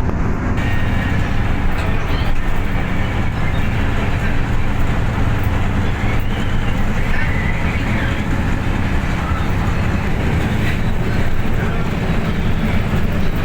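Heavy truck on the move: a steady, unbroken engine drone with road noise.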